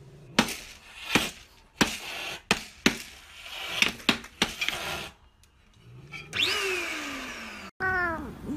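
A cat batting at a handheld plastic appliance: a run of sharp taps and knocks, about a dozen over four seconds, then a long falling whine. After a cut near the end, a cat meows twice.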